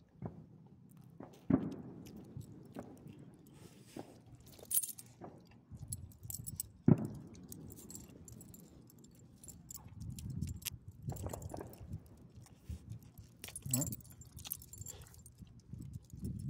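Metal dog-collar tags jingling lightly and irregularly as a dog moves about, over rustling handling noise, with two sharp knocks, about a second and a half in and about seven seconds in.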